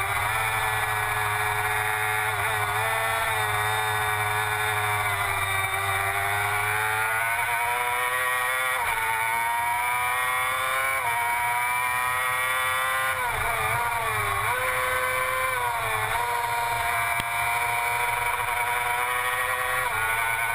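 Engine of a vehicle lapping a race track, its pitch climbing under throttle and falling away on braking, with quick dips at gear changes several times.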